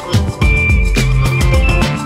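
Background music with a steady beat, a bass line and a held melody.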